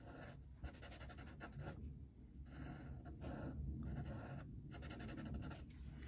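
Faint strokes of a fine-point Sharpie marker's felt tip drawing on paper: a run of short scratchy strokes with brief pauses between them.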